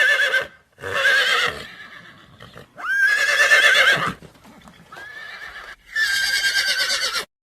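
Horse whinnying about five times in a row, each neigh a high, quavering call lasting about a second. The sound cuts off abruptly near the end.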